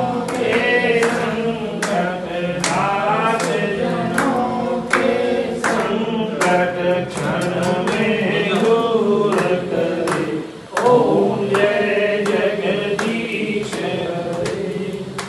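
Several voices singing a Hindu devotional chant together, with sharp hand claps scattered through it; the singing breaks off briefly about two-thirds of the way in.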